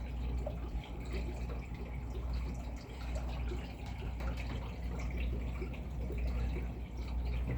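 Steady low hum with water trickling and dripping in a small room.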